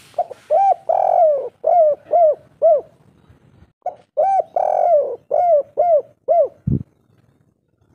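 Spotted dove singing its kuk-3 song: two phrases of cooing, each with a drawn-out coo near the start and a run of short clipped coos after it. A short low thump follows near the end.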